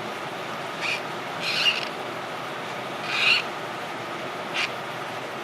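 Four short scraping rustles from hands wiping and handling injector parts, the second and third the loudest, over a steady background hum.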